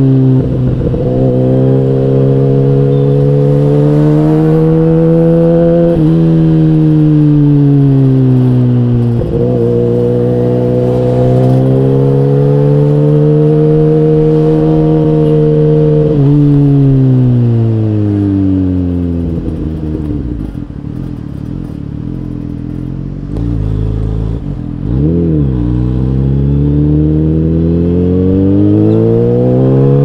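Kawasaki Ninja H2's supercharged inline-four engine pulling through the gears, its pitch climbing in each gear and dropping sharply at each upshift. About two-thirds of the way in it falls away lower and quieter as the bike slows. It gives a quick rev up and down, then climbs again.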